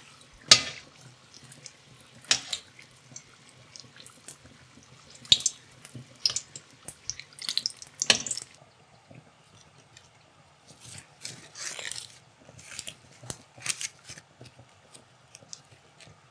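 Curry puffs deep-frying in hot oil in a wok, sizzling with a scatter of crackles and pops and several louder sharp clicks.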